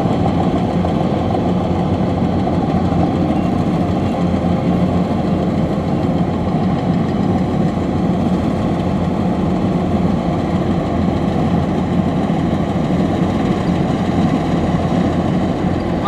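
Kubota DC-105X rice combine harvester running steadily as it cuts through standing rice: a continuous loud diesel engine and machinery din.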